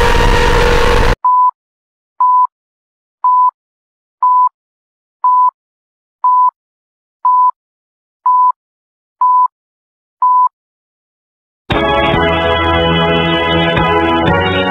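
A loud, noisy sound cuts off about a second in. Then ten short countdown beeps come at one pitch, evenly about one a second. After a moment of silence, loud organ-like music bursts in suddenly as the promised jumpscare.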